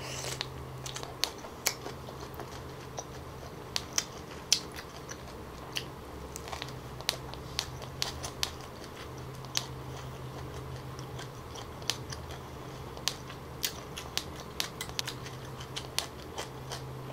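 Close-miked eating sounds: biting and chewing a rice-paper roll of chewy fish cake and duck egg, heard as scattered sharp wet mouth clicks and smacks over a faint steady low hum.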